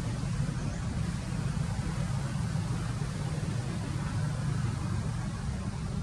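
Steady low background rumble with an even hiss above it, unchanging throughout, with no bird calls.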